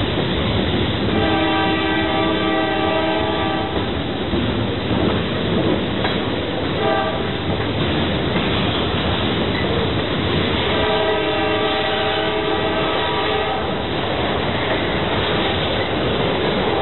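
Freight cars rolling slowly past with steady wheel and rail clatter. A train horn sounds over it with a chord of several notes: a long blast, a short one, then another long blast.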